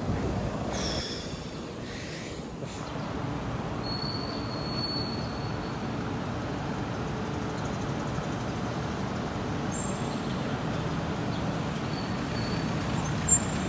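Steady city street traffic noise from passing cars. There is wind on the microphone in the first couple of seconds, and a single sharp click near the end.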